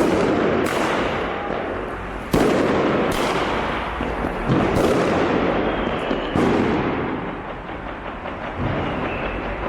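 Fireworks and firecrackers going off: a steady crackle and rumble with several sharp bangs a second or two apart.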